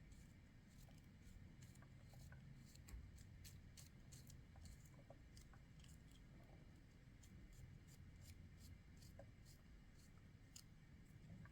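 Near silence with many faint, scattered clicks and light taps, typical of quiet kitchen food preparation.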